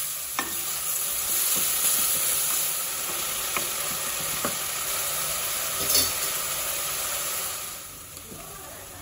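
Finely chopped onions sizzling in hot ghee in a pressure cooker, stirred with a wooden spatula that taps and scrapes the pot a few times. The sizzle grows quieter near the end.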